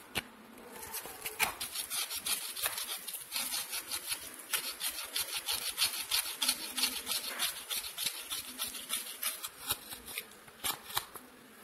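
Fingers pressing and rubbing freshly grated coconut on newspaper: a dense run of small crackles and rustles that dies down near the end.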